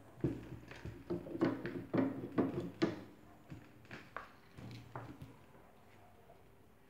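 Clanks and knocks of a strut assembly, its coil spring held in spring compressors, being turned over and shifted on a work table: a run of sharp knocks over the first five seconds or so.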